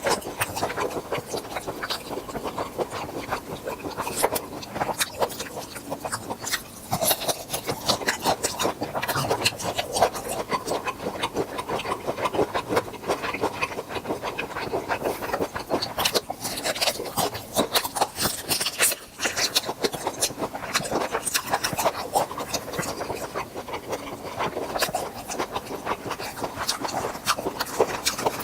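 Close-miked eating of grilled tiger prawns: a steady run of small, irregular crackles and clicks from the shells and the chewing.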